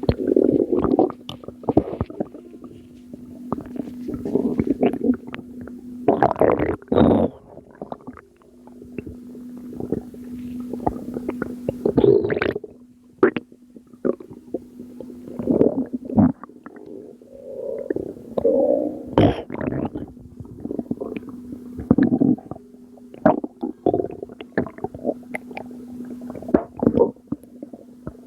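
Gurgling from a belly, in irregular gurgles and squelches of varying length that the uploader attributes to postpartum water weight. A steady low hum runs underneath.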